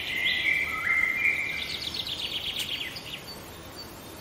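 Bird song: clear held whistled notes that jump up and down in pitch, then a fast trill that fades out about three seconds in.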